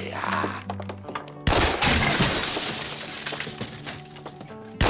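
Music with sudden loud crashes of something breaking or shattering, one about a second and a half in and another near the end, each dying away.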